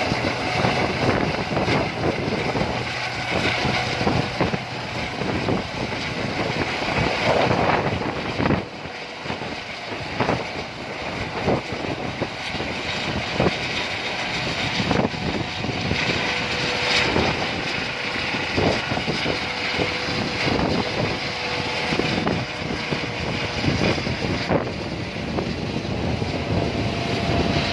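Helicopter rotor and engine noise, continuous and loud, with irregular gusts of wind buffeting the microphone.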